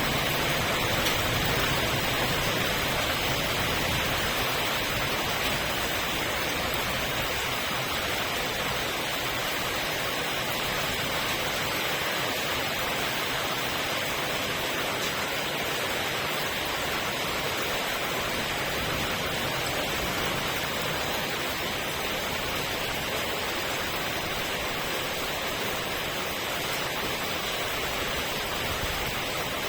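Steady rain falling, an even hiss without thunder.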